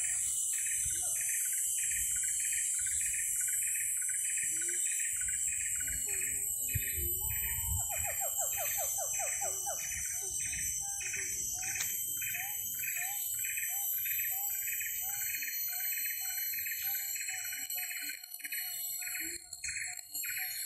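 Siamang calling: a long run of short calls, about two a second, with a faster series of rising notes about a third of the way in. A steady high-pitched insect drone runs throughout.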